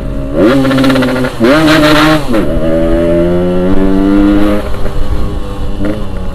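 Yamaha RX-King 135cc two-stroke single-cylinder motorcycle engine revving under acceleration. Its pitch climbs to a peak about two seconds in and drops back sharply, then runs steadier and slowly rises again.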